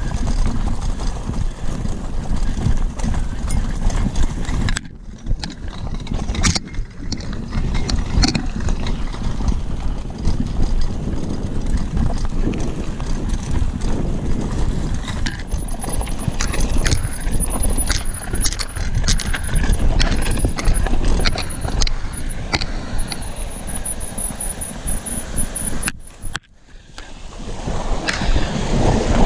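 Wind rushing over the microphone while a bicycle clatters over a rough gravel track at speed, with many sharp knocks and rattles from the bumps. The noise cuts out briefly about five seconds in and dips again near the end.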